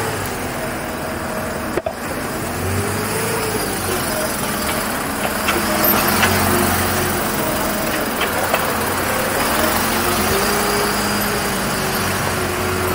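Mercedes-Benz Unimog U 5000's 4.7-litre four-cylinder diesel engine pulling the truck slowly, its pitch rising and falling several times as the throttle is worked.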